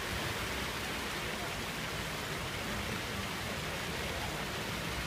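Ground-level fountain jets spraying and splashing onto wet paving, a steady hiss of falling water.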